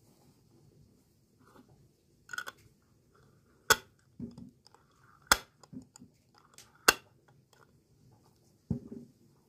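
Glass jars and metal lids being handled and knocked together: three sharp clicks about a second and a half apart, with lighter knocks between them.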